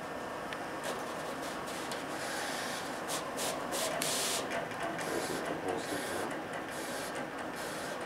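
Roland wide-format print-and-cut machine running, its carriage shuttling across the vinyl in short moves, each heard as a brief whir over a steady mechanical hum.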